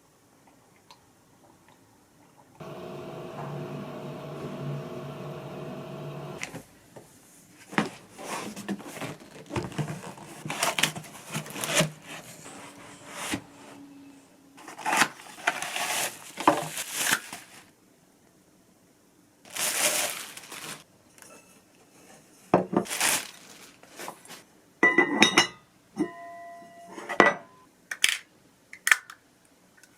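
Kitchen work: a steady electric appliance hum lasts a few seconds, then dishes and utensils clatter and knock repeatedly. A few short electronic beeps come near the end.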